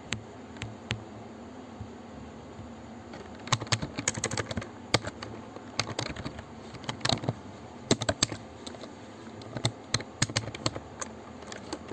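Computer keyboard typing: a few scattered key clicks, a short pause, then quick runs of keystrokes from about three and a half seconds in.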